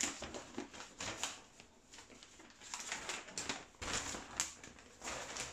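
Large paper plan sheets rustling and crinkling as they are unfolded and flipped over by hand, in short irregular rustles with a quieter stretch about two seconds in.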